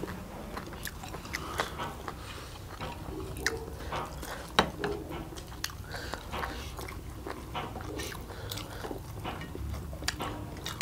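Two people eating stir-fried instant noodles with chopsticks: close-up chewing and mouth noises, with many short sharp clicks scattered throughout.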